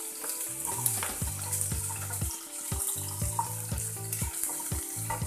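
Chopped onions sizzling in hot oil in a kadhai, stirred with a wooden spatula that scrapes and knocks against the pan several times.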